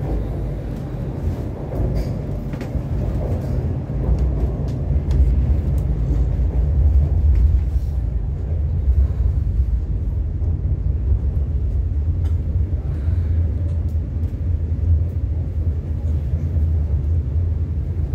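MTR Kwun Tong Line C-Train running between stations, heard from inside the car: a steady low rumble that grows louder about four seconds in, with a few faint clicks early on.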